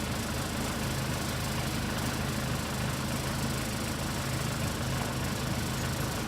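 Backhoe engine running steadily at a constant speed.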